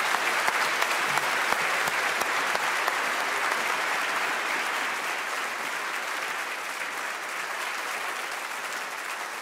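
Large audience applauding: dense, steady clapping that slowly eases off toward the end.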